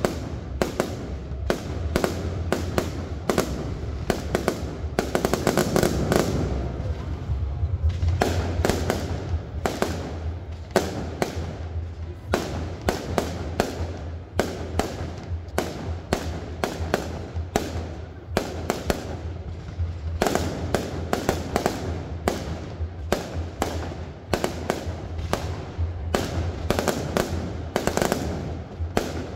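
Aerial fireworks shells bursting in quick, continuous succession, about two bangs a second, over a steady low rumble.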